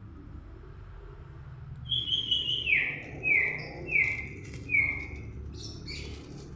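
A songbird singing: a short chattering phrase, then four clear down-slurred whistles, evenly spaced, over a steady low hum.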